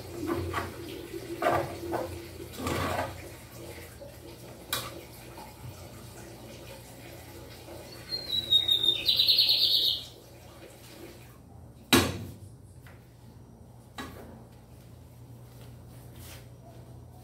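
Dishes and utensils clattering at a kitchen counter, a high chirping trill lasting about two seconds midway, then one sharp knock and later a smaller one.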